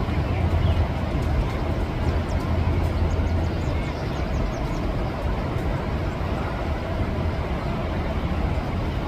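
Steady outdoor background noise with a low rumble and no single sound standing out.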